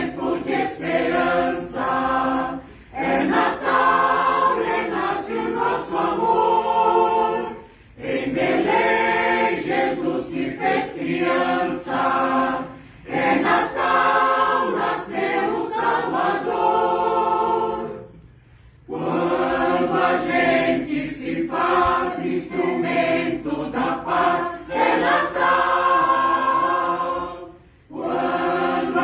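Choir singing a Portuguese Christmas song, in phrases of four to five seconds, each broken by a short pause for breath.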